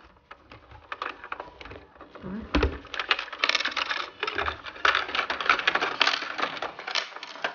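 Hand rummaging in the plastic dispensing tray of a toy vending machine: a dense run of light plastic clicks and clatters, busier in the second half, with a dull thump about two and a half seconds in.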